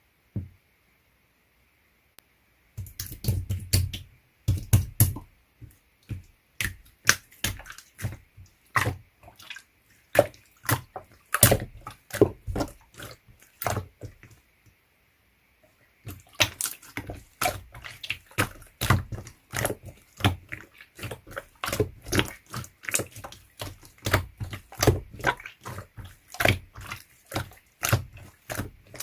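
Slime being squeezed and worked by hand: a rapid run of wet clicks and popping air pockets. It starts about three seconds in and pauses for a second or two around the middle.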